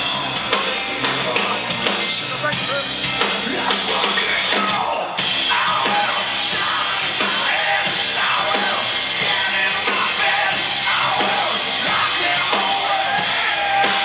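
Hard rock band playing live through a club PA, heard from within the crowd: electric guitars and drum kit with singing over them.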